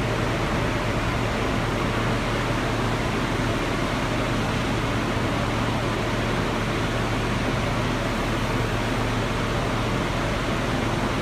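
Steady whooshing hum of an R160B subway car's air conditioning and onboard equipment while the train stands at the station, with a constant low drone underneath.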